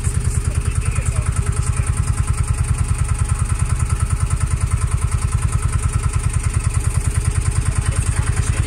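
Tour boat's engine running steadily at low speed, a regular low chugging of about eight beats a second.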